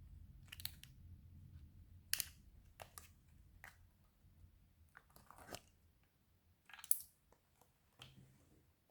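Slime being squeezed and stretched by hand, giving irregular sticky pops and crackles. The loudest pop comes about seven seconds in.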